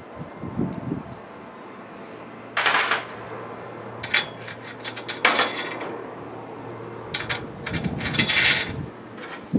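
Light metallic clinks and ticks from handling hardware, with three short, louder scuffs about a third, half and most of the way through.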